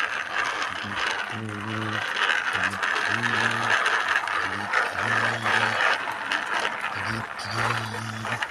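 Toy vehicles rattling and clicking as they are handled and moved, with four short, low, held vocal sounds over it.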